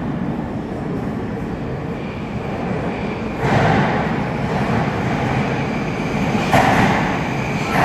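Moscow metro train rumbling through the station, with a thin high whine over it; the rumble grows louder about three and a half seconds in.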